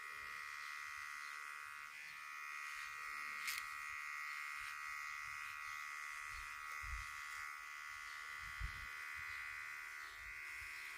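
Cordless electric body shaver running with a steady high buzz; another tone joins about two seconds in, and two faint low knocks come later on.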